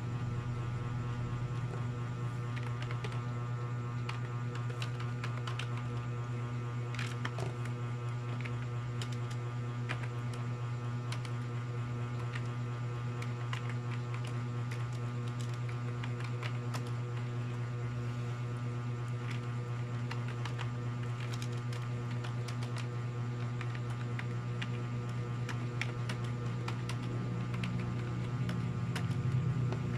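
Steady low electrical hum with scattered, irregular light clicks of keys being typed on a computer keyboard.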